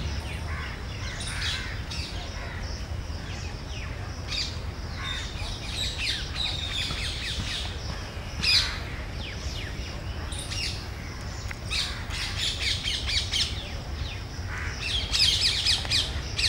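Several birds chirping and calling, short quick calls scattered throughout and coming thick and fast near the end, over a steady low rumble. A single brief knock sounds about eight and a half seconds in.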